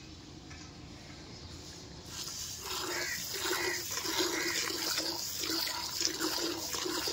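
Cow being hand-milked: squirts of milk from the teats hitting the frothy milk in a plastic bucket, in a quick, steady rhythm that starts about two seconds in.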